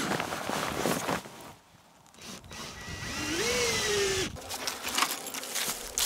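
Ridgid cordless drill motor spinning up, rising in pitch and running for about a second before stopping, as it drives a washered screw to fasten the hive wrap to the wooden base. Rustling and handling noise comes first.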